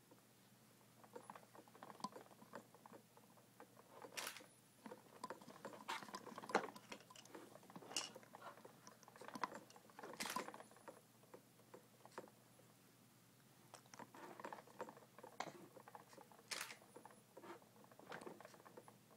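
Faint, irregular clicking, tapping and light rattling of plastic baby toys on an exersaucer tray as an infant handles them, with a few louder knocks scattered through.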